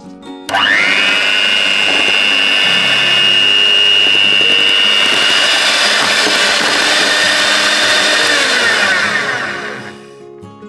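Electric hand mixer switching on about half a second in, its motor spinning up to a steady high whine as its twin beaters whip a cream mixture, then winding down in pitch and stopping near the end.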